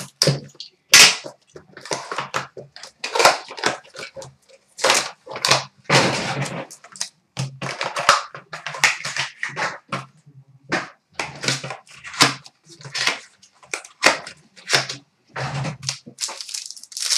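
Trading-card packs and a small cardboard box being torn and opened by hand: an irregular string of wrapper tearing, rustling and sharp snaps, the loudest snap about a second in.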